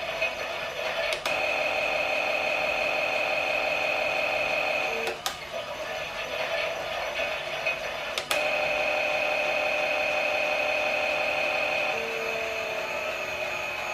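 Klein toy Miele washing machine running a pretend wash, its small battery motor whining steadily as it turns the drum. Sharp clicks about one, five and eight seconds in mark each switch of its running, and the whine quietens between the middle two clicks.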